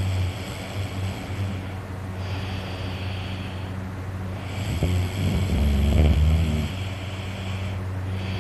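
A sleeping man breathing heavily and snoring, with one long, loud snore about five seconds in, over a steady low hum.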